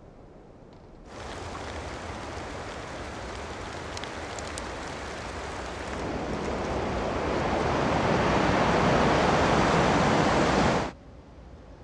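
Strong wind rushing, coming in about a second in over a faint hiss, growing steadily louder and then cutting off abruptly near the end. A few faint ticks sound about four seconds in.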